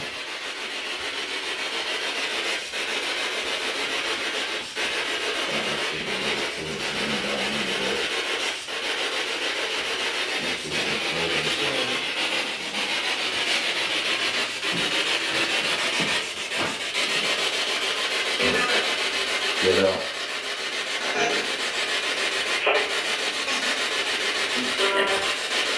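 Spirit box (ghost box) radio static sweeping through stations: a steady hiss broken by brief dropouts, with faint chopped fragments.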